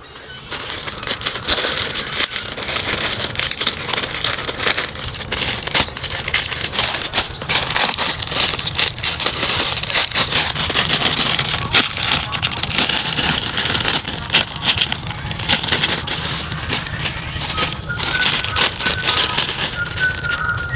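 Continuous crackling and crinkling of plastic packaging as squishy toys are handled, full of small rapid clicks over a steady low hum.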